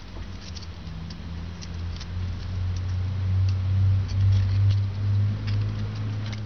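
Fingers handling and turning a small ring-shaped part right at the microphone, giving scattered light clicks. Under them runs a low steady hum that swells about halfway through and then eases.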